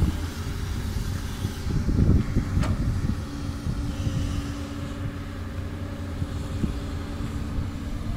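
Doosan DX200 excavator's diesel engine running steadily, with a louder stretch about two seconds in and a clank soon after.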